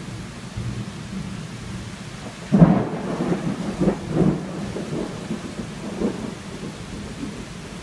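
Steady heavy rain, broken about two and a half seconds in by a sudden close thunderclap that goes on rumbling in several further peaks for about three seconds.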